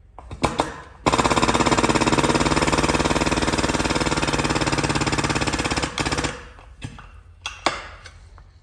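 Impact wrench hammering rapidly for about five seconds, starting about a second in, as it drives a pipe expander to stretch the end of a stainless exhaust pipe. A few short metal knocks come before and after as the tool is set on and taken off.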